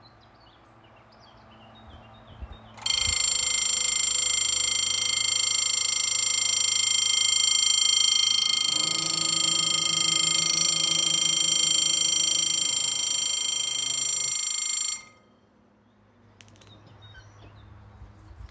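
Level-crossing warning bell ringing loud and steady. It starts suddenly about three seconds in and cuts off about twelve seconds later. A lower hum joins for the last five seconds or so while the barrier arms come down.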